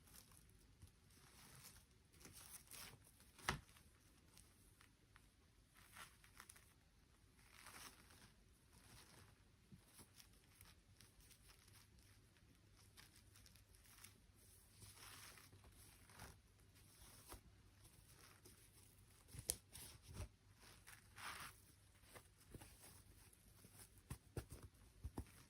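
Faint rustling and tearing of toy packaging being handled, with soft swells of noise every second or two and a few sharp clicks, the loudest about three seconds in and two close together past the middle.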